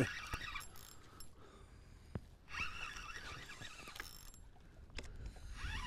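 Fishing reel being cranked in two or three spells, its gears whirring, as a hooked bass is reeled in. A single sharp click comes a little after two seconds in.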